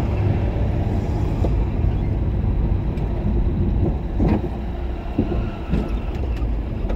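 Car driving at low speed, a steady low rumble of engine and tyre noise.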